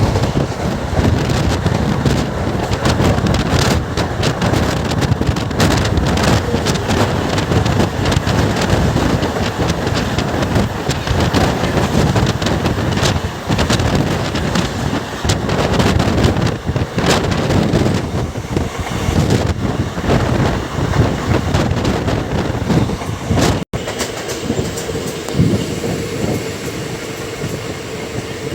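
Express passenger train running at speed, heard from on board: a loud steady rush of running noise with wheels clicking over the rail joints. Near the end it breaks off for an instant.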